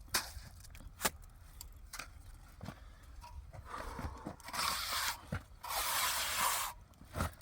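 A few sharp knocks, then two stretches of scraping noise about four and a half seconds in.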